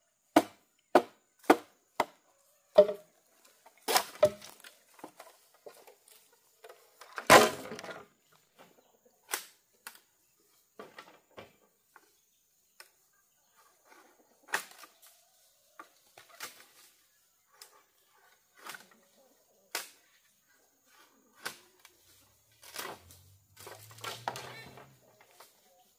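A hand tool striking bamboo: a quick, even run of sharp chops at first, then a couple of heavier blows, then scattered lighter knocks and taps.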